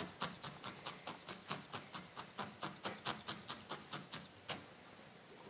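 Felting needle in a pen-style holder stabbing repeatedly into golden wool roving: a steady run of soft, quick pokes, about five a second, that stops about four and a half seconds in.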